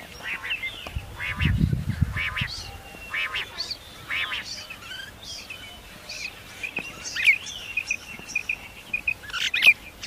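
Common quail calling, a clear note about once a second, followed by a run of quick, high chirps in the second half. A brief low rumble about a second and a half in.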